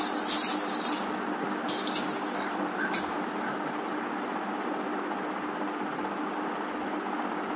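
Fish pieces sizzling steadily as they shallow-fry in hot oil in a kadai, with a few sharper spits in the first two seconds.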